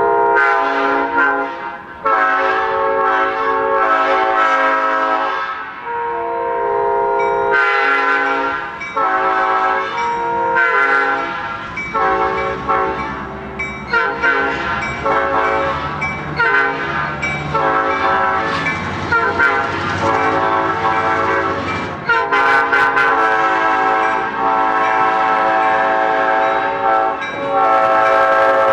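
Five-chime locomotive air horns sounding a chord in a long series of blasts of varying length, some of them overlapping.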